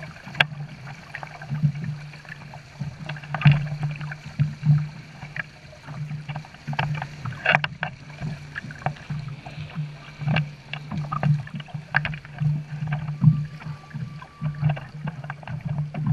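Boat under way on choppy water: a steady low engine drone with frequent irregular splashes and slaps of water.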